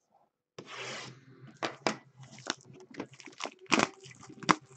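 Foil wrapper of a trading-card pack being torn open and crinkled: a rustling tear about half a second in, then a run of sharp clicks and taps as the cards and box are handled.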